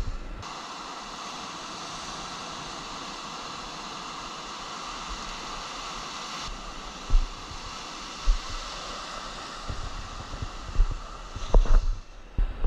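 Surf breaking and washing in over the shallows: a steady hiss of waves and foam. From about halfway on, irregular low thumps of wind buffeting the microphone come in, growing more frequent near the end.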